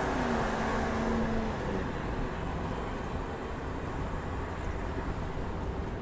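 Road noise of a van driving at road speed: a steady rush of tyres with a low rumble. A faint engine tone dips slightly and fades out after about two seconds.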